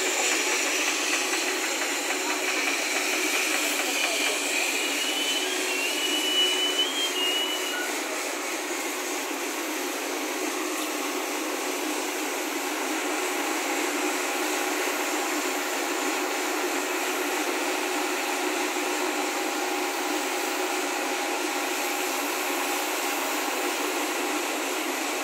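Hydraulic mobile crane's engine running steadily as a hiss with a faint hum while it holds a steel girder member on its hook. A brief high chirp comes about five to seven seconds in.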